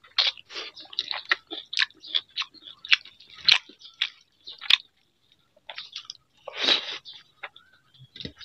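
A man chewing and smacking his lips on a mouthful of rice and fried vegetables, close to the microphone. Short wet smacks come several times a second, with two sharp clicks in the middle and a longer, louder squelch about six and a half seconds in.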